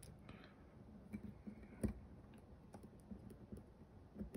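Faint, scattered clicks and small taps of metal parts being handled, with one sharper click about two seconds in: a back plate being worked onto the rear of a SIG P320 pistol slide and pressed down to find its groove.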